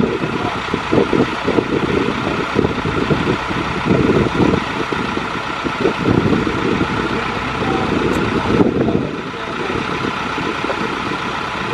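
Boatyard travel lift's engine running as it hoists a sailboat, with an uneven low rumble; the sound thins briefly about eight and a half seconds in.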